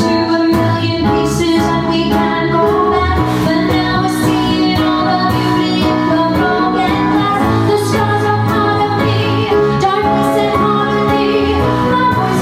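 A recorded pop song playing in an instrumental passage with a steady beat.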